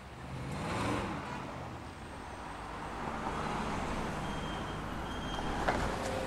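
A car driving along in street traffic, its engine swelling as it passes about a second in, then steady traffic noise, with a short knock near the end.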